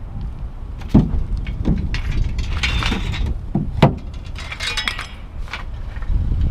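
Steel bed frame rails being picked up and handled, clanking and rattling: two sharp knocks about three seconds apart, with metallic jingling in between.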